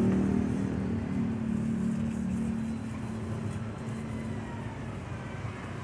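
A passing motor vehicle's engine drone, fading away, over a background of street traffic noise.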